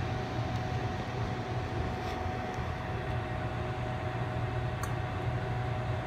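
Microwave oven running, heating a bar of Ivory soap: a steady low hum with fan noise and a faint steady tone above it.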